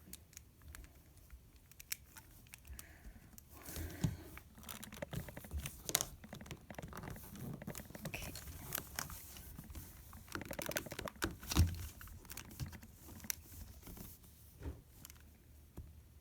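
LEGO plastic pieces clicking, scraping and rattling as a LEGO puzzle box is handled and its parts slid and pushed, in scattered small clicks, with a sharper knock about two-thirds of the way through.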